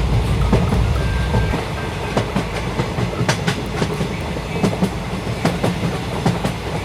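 A train running along its tracks, with irregular clicking of wheels over the rails above a low rumble that weakens about a second and a half in.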